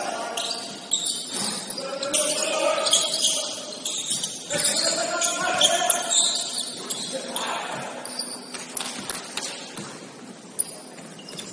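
Basketball game in a gym: players' voices calling out across the court, sneakers squeaking and the ball bouncing on the floor.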